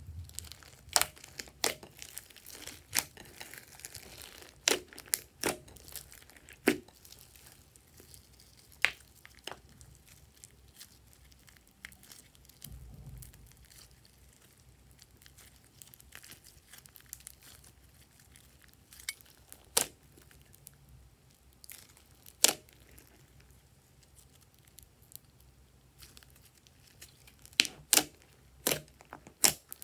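Hands kneading and stretching glossy slime: sticky, crackling slime sounds with irregular sharp pops. The pops come in a cluster at the start, a few in the middle, and another cluster near the end, with quieter squishing between.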